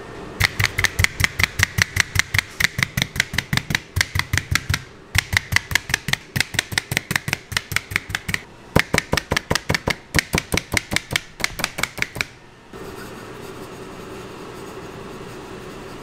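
Handheld multi-blade meat tenderizer punched rapidly down through raw pork cutlets onto a plastic cutting board, about five sharp clacks a second. It pauses briefly twice and stops about twelve seconds in, leaving a steady machine hum.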